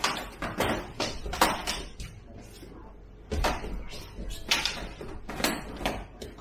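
Fighting sticks knocking sharply against each other and against padded armour and masks during a single-stick sparring exchange. A quick flurry of knocks comes first, then a short lull, then single hits and small clusters about a second apart.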